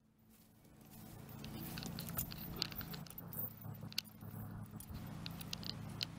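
The metal bit and bridle rings of a horse's snaffle bridle jingling and clinking close by, a run of short, sharp metallic clicks as the horse moves its head and mouths the bit, over a steady low hum. The sound fades in during the first second.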